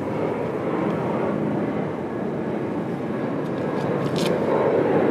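Steady engine rumble of passing traffic, swelling a little near the end, with a light knock about four seconds in.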